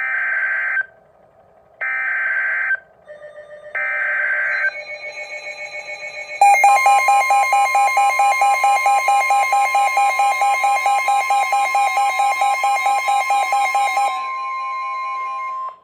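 Emergency Alert System SAME header: three short, buzzy digital data bursts, about two seconds apart. They are followed by the steady 1050 Hz weather-radio warning alarm tone, which signals a warning such as a severe thunderstorm warning. For most of the tone, a loud, rapidly pulsing electronic alarm beep sounds over it and stops shortly before the end.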